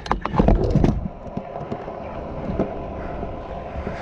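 Pro scooter rolling on a concrete skatepark: several sharp knocks and clatters of the deck and wheels in the first second, then a steady rolling rumble of the wheels on concrete.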